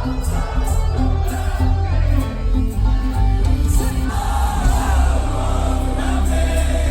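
Live concert music heard from the audience: a loud band with heavy bass under singing.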